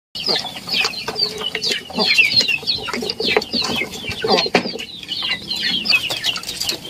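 A flock of Indonesian village chickens clucking and calling as they feed, with many short, high calls overlapping.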